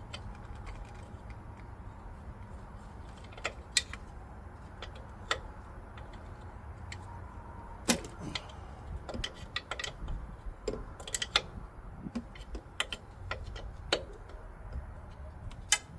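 Hand tools clicking and knocking against metal while a socket wrench is worked onto a brake booster mounting bolt; scattered sharp clicks, growing more frequent about halfway through.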